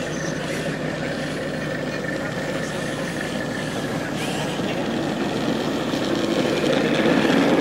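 Steady motor running with a thin steady whine, getting louder toward the end, over faint background voices.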